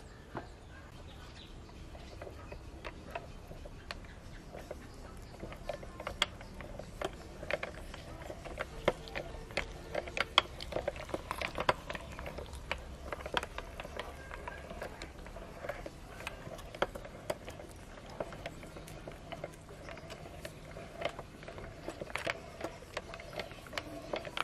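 Irregular clicks, taps and knocks of tomatoes and a hand-crank aluminium meat grinder being handled, busiest in the middle stretch.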